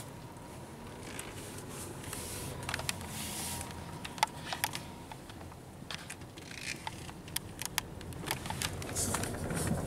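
Low, steady engine and road hum inside a Chevrolet car's cabin while it drives slowly, with a few scattered sharp clicks from the handheld camera being handled.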